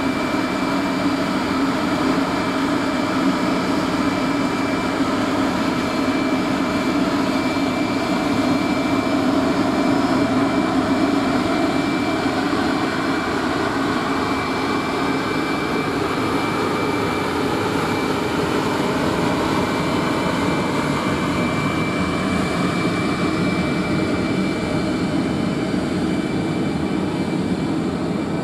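DS3 electric locomotive pulling a passenger train away from the platform: its blowers and traction equipment run with a loud, steady whine and a thin high tone, and near the end the coaches roll past.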